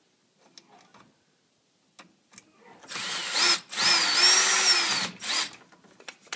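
Power drill driving a screw to fasten a plastic pull stop box to its mounting bracket, running in two short bursts of motor whine starting about three seconds in, the second longer, with a brief blip after. The first few seconds hold only faint handling clicks.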